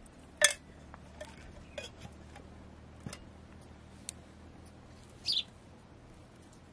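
Birds chirping: a few short, sharp, high calls scattered through the stretch, the loudest about half a second in.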